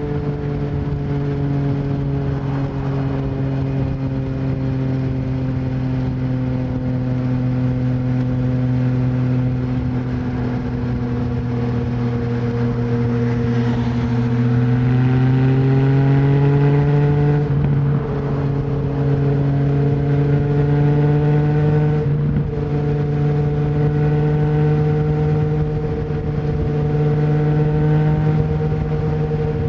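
2020 Yamaha MT-09's three-cylinder engine through an Akrapovic full exhaust with no dB killer, pulling along at a steady cruise. The revs sag slowly, rise a little past halfway, dip briefly, then hold steady.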